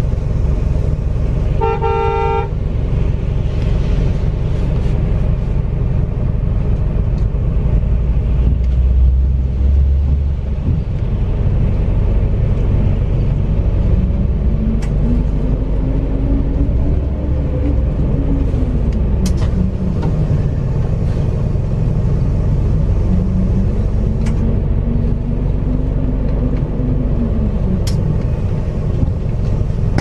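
MAZ-206 city bus heard from on board, its engine and road rumble running steadily. About two seconds in there is a short horn toot. Later a whining tone rises and falls twice as the bus pulls.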